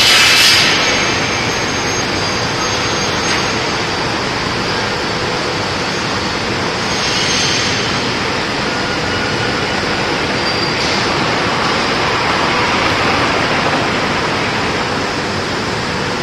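Steady, loud rushing noise of machinery running on an aluminium extrusion press line, with a few short bursts of sharper hiss.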